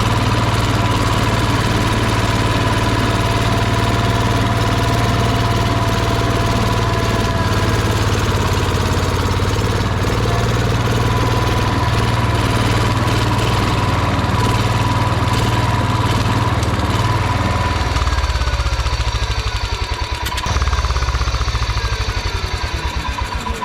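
1971 John Deere 140 riding mower's Kohler engine running steadily now that its clogged air filter is off. The engine note changes about eighteen seconds in.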